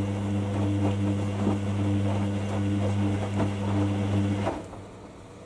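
Hoover WDYNS654D washer dryer giving off a loud, steady low mechanical hum that cuts off suddenly about four and a half seconds in, leaving only a faint hiss.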